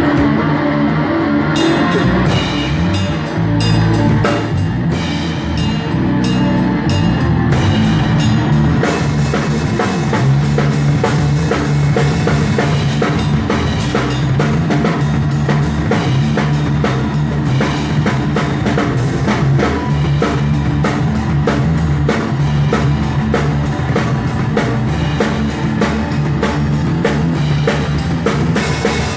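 A rock band playing live, drum kit and electric guitar, with no singing. The drums come in about a second and a half in and the playing grows fuller, with heavier cymbals, from about nine seconds.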